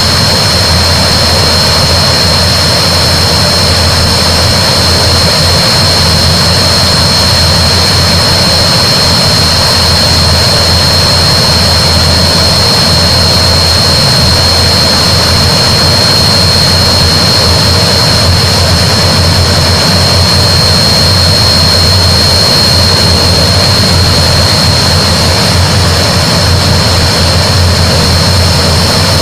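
Antonov An-12's four Ivchenko AI-20 turboprop engines running at a steady setting: a loud, constant high turbine whine over a deep propeller drone.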